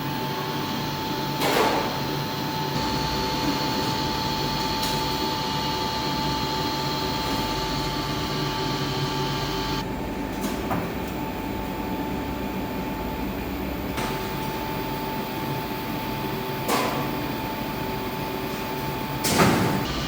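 ThyssenKrupp TW200 geared elevator traction machine running with a steady whine and hum. Four sharp clacks cut in, about a second and a half in, around ten and a half seconds, near seventeen seconds and near the end.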